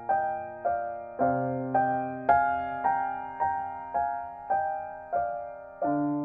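Slow, gentle piano music: evenly spaced notes, about two a second, each fading away, over held bass notes that shift about a second in and again near the end.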